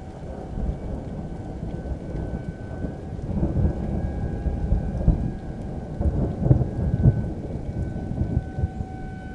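Low, uneven rumbling of thunder, swelling loudest between about three and seven seconds in. Behind it, a Federal Signal 2001-130 outdoor warning siren holds a faint steady tone that grows louder near the end.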